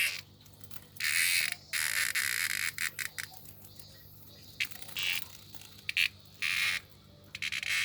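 Male robust cicada (minminzemi) buzzing in loud, irregular bursts of harsh noise, each from a fraction of a second to about a second long: the distress calls of a cicada caught and being eaten by a red-eared slider. A faint steady low hum runs underneath.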